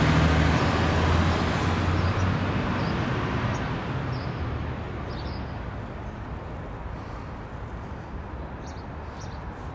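A large coach's engine running close by, then fading steadily as the coach drives away, leaving faint street traffic noise.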